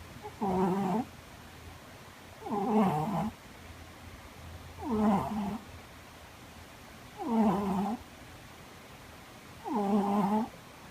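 A sleeping cat snoring loudly: five short, pitched snores, one about every two and a half seconds.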